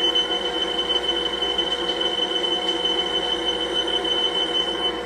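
Smoke alarm sounding one continuous high-pitched tone over a steady background noise; it cuts off a little before the end. The alarm was set off while cooking with little visible smoke, which the cook puts down to its heat sensor.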